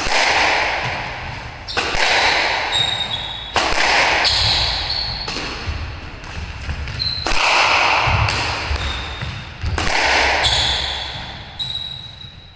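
Squash rally: the ball cracks sharply off rackets and the court walls about every one to two seconds, each hit ringing on in the hollow court. Short high squeaks of rubber-soled court shoes on the wooden floor come between the hits.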